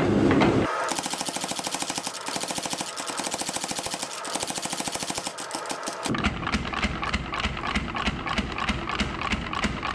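Power hammer pounding a hot forge-welded stainless san mai billet in a rapid, even train of blows, drawing it out. About six seconds in the blows become heavier and fuller.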